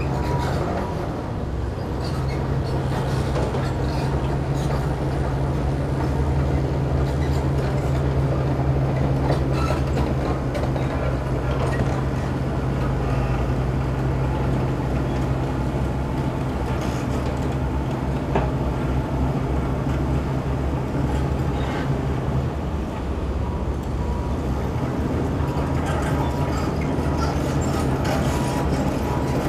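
Diesel engines of excavators and dump trucks working on an earthworks site: a steady low engine drone with scattered clanks and knocks of rock and metal. The drone's pitch shifts about three-quarters of the way through.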